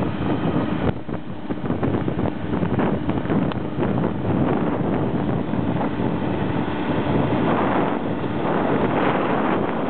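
Wind buffeting the microphone over a tractor engine running steadily as it pulls the plough.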